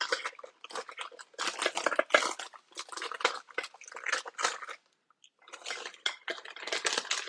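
A small jar of Dolce Vita seasoning being shaken and tapped over a glass bowl: a quick run of rattling shakes and light clinks, with a short pause about five seconds in. The seasoning is stubborn to come out of the jar.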